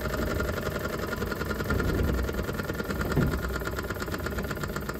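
Small model steam engine running with a fast, even chuffing rhythm over a steady low rumble, its hydrogen gas flame being turned down at the valve, which serves as its throttle, to slow it.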